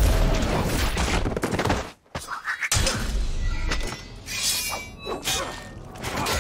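Battle sound effects from a TV fantasy drama: sword fighting with a dense run of crashes, thuds and clashing impacts, broken by a brief hush about two seconds in.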